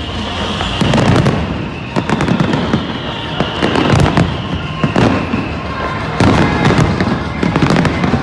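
Fireworks display: large shells bursting in a dense run of booms, roughly one a second, mixed with sharp cracks and crackling.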